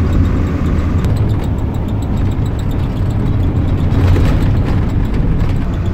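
Truck engine and road noise heard from inside the moving cab: a steady low rumble.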